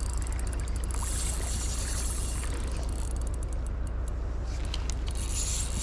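Steady rush of flowing creek water with a constant low rumble underneath.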